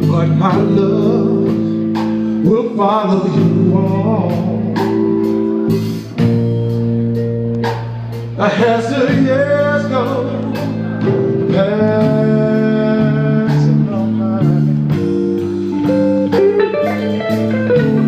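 Live blues song: a guitar played in chords while a man sings drawn-out phrases over it.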